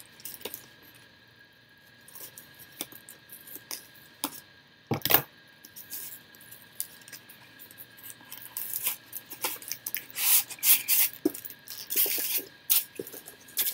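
A cardboard box and its tight packing being pulled at and handled: scattered rustles and clicks, a sharp knock about five seconds in, and denser rustling over the last few seconds.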